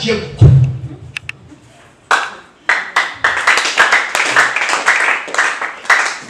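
A loud low thump about half a second in. Then, from about two and a half seconds in, a congregation claps in a quick, even rhythm.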